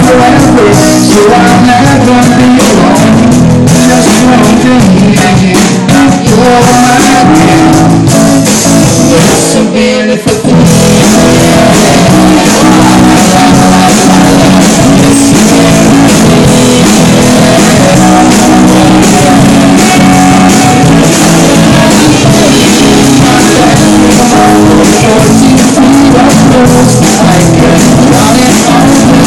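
Live rock band jamming loudly, with electric guitar, drum kit and a singing voice.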